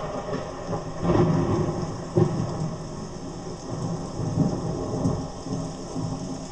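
Thunderstorm: steady rain with rumbles of thunder swelling and fading every second or so, and a sudden loud peak about two seconds in.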